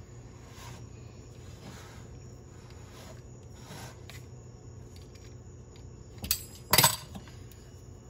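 Soft handling of pastry dough in a metal cake pan over a low steady hum, then two sharp knocks a little past six seconds in, the second louder, as a pizza cutter is set down on the countertop.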